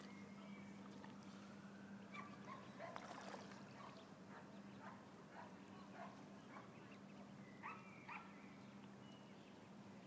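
Ducklings peeping: faint, short high-pitched peeps scattered throughout, with two louder peeps about eight seconds in.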